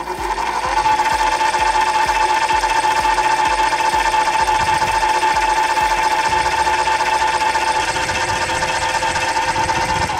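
Cowells 90ME miniature lathe run by a 150-watt DC motor through belts and gears, with the longitudinal power feed engaged: it comes up to speed within about a second of being switched on, then runs steadily with a high whine and a faint low beat a few times a second, and stops near the end.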